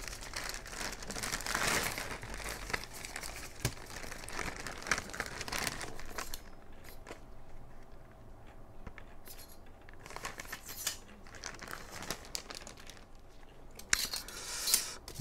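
Thin clear plastic bag crinkling and rustling as it is pulled off folded metal stove panels, busiest in the first six seconds and quieter after, with a sharp click near the end.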